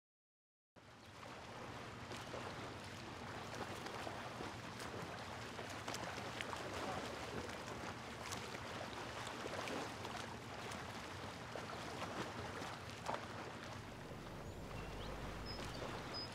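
Creek water running: a steady rush with small splashing ticks, and a couple of faint high chirps near the end.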